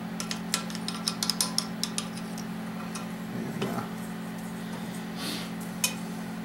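A quick run of light metallic clicks as a thumb-pump oil can squirts oil onto a valve stem at a 5.7 Vortec cylinder head, followed by a brief hiss and a single click near the end.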